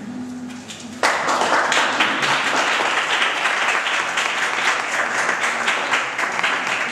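An audience applauding, with dense clapping that starts suddenly about a second in and keeps going.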